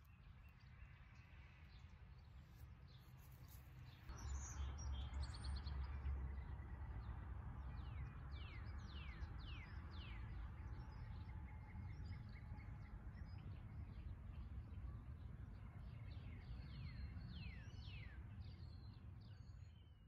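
Small birds chirping outdoors, starting a few seconds in, with runs of quick, high, downward-sliding calls over a low steady rumble.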